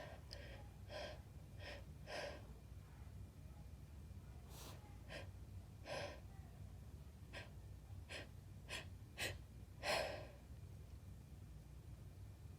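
A woman's quiet, short breaths and sniffs, about a dozen of them spaced irregularly with pauses in between, the strongest near the end, as she catches her breath after an intense sneezing fit. A faint low hum runs underneath.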